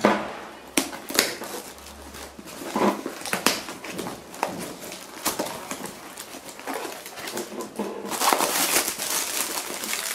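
Cardboard shipping box being handled and opened, with a string of sharp taps, knocks and scrapes. Near the end, plastic packing (air-bag cushions) crinkles steadily as it is pulled out.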